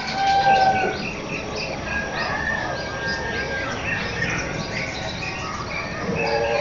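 Birds calling together in a morning chorus: a run of short, repeated high chirps over a few long, held whistled notes, with lower calls joining near the end.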